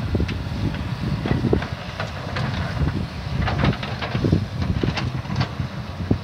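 A heavy vehicle's engine running with a steady low rumble, with irregular knocks and clicks over it.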